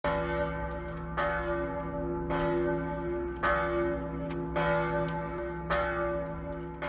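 Church bells ringing: a strike about once a second, each one ringing on into the next.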